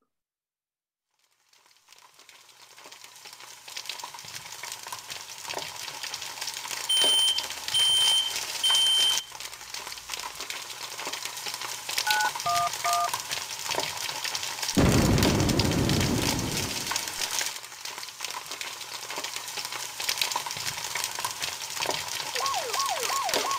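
Sound effects for a house fire. Fire crackling rises out of silence, a smoke alarm gives three long beeps (the standard three-beep alarm pattern), and 9-1-1 is dialled on a touch-tone keypad. About 15 seconds in there is a deep whoosh of the fire flaring up, and near the end a fire-engine siren starts wailing in quick rising-and-falling sweeps.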